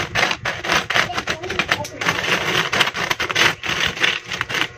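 Peso coins clinking and scraping against each other and the wooden floor as they are slid out of a pile and stacked by hand, with many quick clicks in a row.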